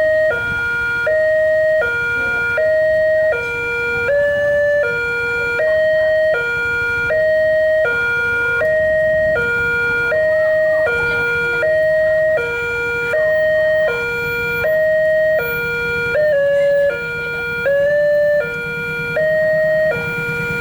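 Railway level-crossing warning siren sounding a two-tone hi-lo alarm, switching between a higher and a lower tone about twice a second, with brief wavering pitch slips about four seconds in and again near the end; the uploader calls the siren faulty. A low rumble builds beneath it in the second half.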